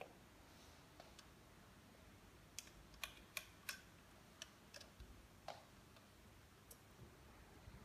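Light, sharp clicks and taps of a small tool and wire ends against the plastic case and terminals of a solar charge controller as the wires are fitted. There are about eight separate clicks, irregularly spaced, starting a couple of seconds in, over a near-silent room.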